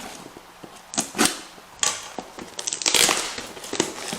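Toy packaging being pulled apart by hand: tape and cardboard ripping and rustling in a few short scrapes early on, then a longer stretch of rustling in the middle.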